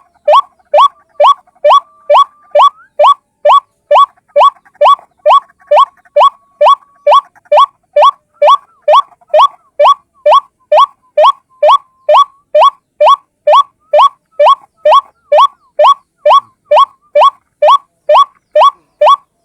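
White-breasted waterhen (ruak-ruak) calling: a short rising note repeated evenly about twice a second, looped as a single-bird lure call.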